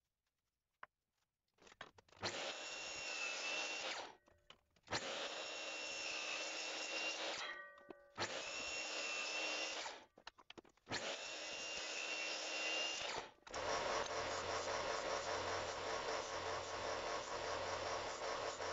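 A sliding miter saw runs in four separate bursts of about two seconds each, its motor whining steadily through each cut. About thirteen seconds in, a Zubr bench belt sander takes over, running steadily as a cut piece is held to it to grind off the burrs.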